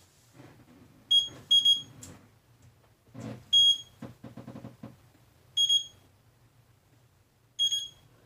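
KingSong KS18L electric unicycle beeping after being switched on: five short, high beeps, two close together near the start and then one about every two seconds. This is the alert of a new wheel that has not yet been unlocked through the KingSong app. Knocks and rattles of the wheel being handled come in the middle.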